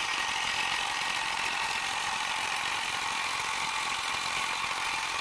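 Homemade electric outboard motor built from an angle grinder's motor and gear head, switched on and running with a steady high whir.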